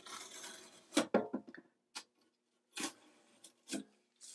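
Craft-knife blade slicing through foam core: a scratchy hiss for about the first second. Several separate sharp clicks and knocks follow.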